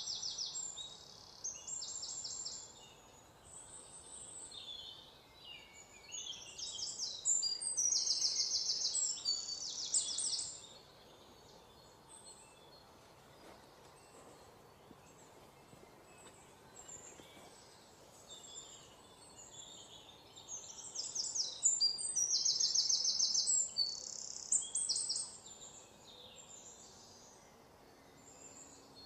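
Small birds chirping and giving rapid high-pitched trills in bursts, loudest twice: once about a quarter of the way through and again past the two-thirds mark, over a faint steady hiss.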